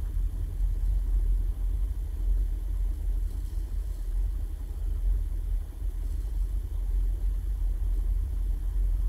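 A steady low rumble of background noise, with no speech and no distinct events.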